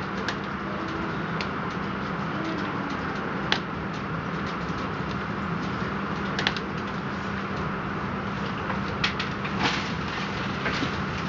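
Inside a passenger car of a regional train rolling slowly along a platform: a steady running rumble and hum, with a few short sharp clicks and creaks scattered through it.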